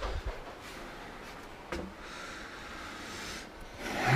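Quiet handling of parts being packed into a box: a faint rubbing or sliding and one light knock less than two seconds in.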